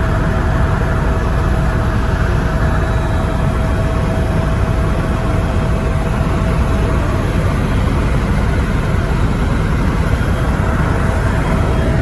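Helicopter in flight: loud, steady engine and rotor noise with a thin steady whine above it.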